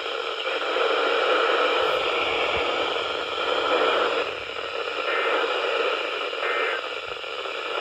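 Radio static: a steady hiss of noisy, weak radio reception with no voice in it, wavering slightly in loudness.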